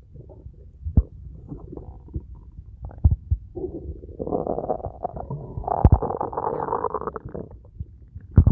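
Bowel sounds heard through a stethoscope: irregular gurgles building to a long, dense run of gurgling in the second half, with a few sharp low knocks. These are the loud, prolonged 'struggle' bowel sounds typical of a mechanical bowel obstruction (mechanical ileus).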